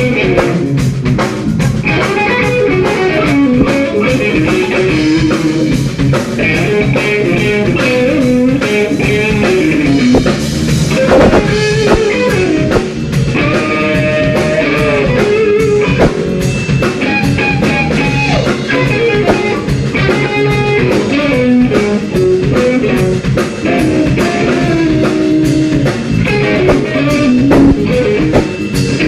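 Live blues band playing: electric guitar lines over bass guitar and a drum kit keeping a steady beat.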